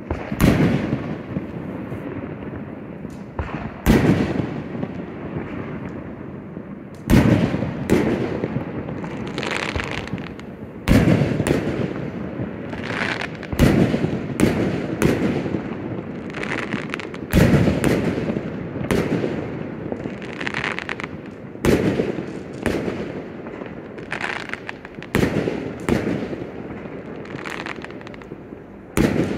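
Aerial fireworks shells bursting in a public display, with a boom every one to three seconds, about twenty in all, each trailing off in a rumbling echo.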